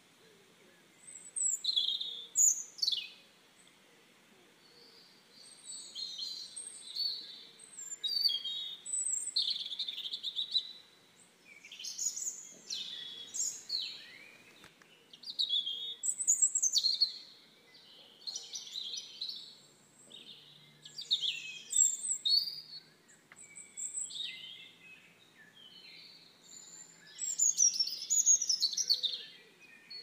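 Birdsong: bright, high chirping phrases of quick falling notes, coming in bursts a second or two long with short pauses between.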